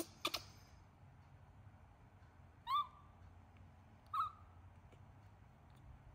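Baby monkey giving two short coo calls about a second and a half apart, each a brief squeak that rises and then falls. Two sharp clicks come right at the start.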